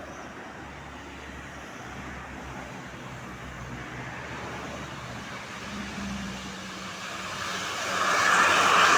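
Roadside traffic noise with a low engine hum. Near the end a vehicle approaches and the sound of engine and tyres rises sharply.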